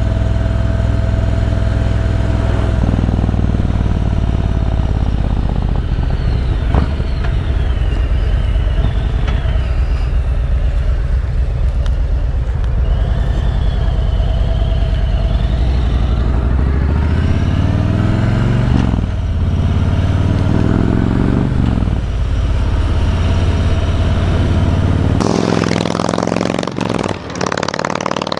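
Exhaust note of a 2019 Harley-Davidson Road King's Milwaukee-Eight V-twin through Vance & Hines true dual headers and 4.5-inch Titan mufflers, heard from on the bike while riding in third gear. A steady deep note; about two-thirds through, the revs climb twice. Near the end the bike is heard from the roadside as it approaches.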